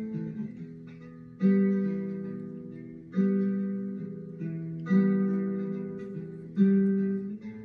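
Acoustic guitar strumming single chords, about one every second and three-quarters, each left to ring and fade: the opening bars of a song, with no voice yet.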